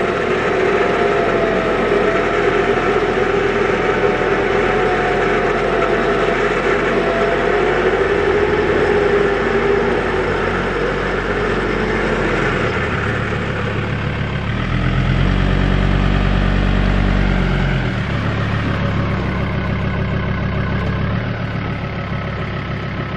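Ford Ranger ute's engine running under load at low speed while towing a heavy caravan out of a mud bog, its note shifting in steps in the second half.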